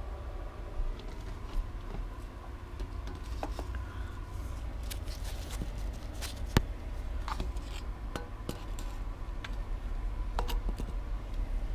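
Handling noise: scattered light clicks, taps and knocks, with one sharper knock about six and a half seconds in, as a camera and torch are moved about among the parts under a motorbike's engine. A low steady hum runs underneath.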